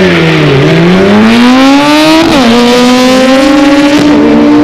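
Race car accelerating hard down a drag strip: its engine note climbs steadily, drops sharply at an upshift a little over two seconds in, then climbs again more slowly.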